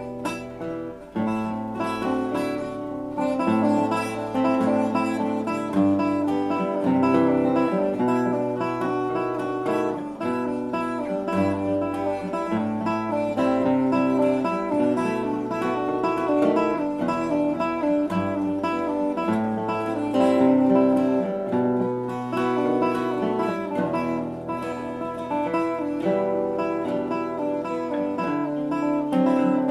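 Background music: an acoustic guitar piece with plucked and strummed notes over a bass line that steps from note to note.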